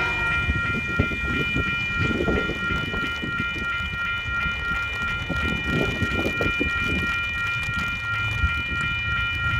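Approaching freight train led by a TasRail TR-class diesel locomotive: a low rumble that swells a couple of times, right after its horn blast cuts off at the very start. A steady high ringing tone runs underneath throughout.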